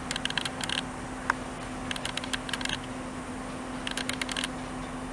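Wheels of a slow-moving passenger train clicking over rail joints and pointwork in regular groups of four to six about every two seconds, over a steady low hum.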